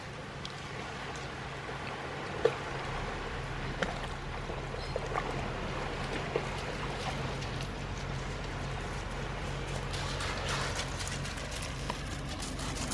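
Shallow stream water running and splashing as a dog wades through it, with scattered small splashes and clicks, over a faint steady low hum.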